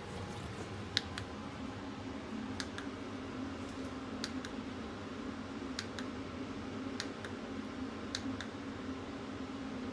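Light, sharp clicks, mostly in close pairs about one to one and a half seconds apart, over a steady low hum.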